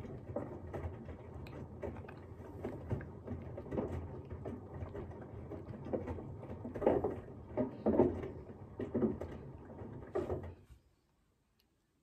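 Washing machine running: a steady low hum with irregular thumps and swishes of the turning drum, cutting off suddenly near the end.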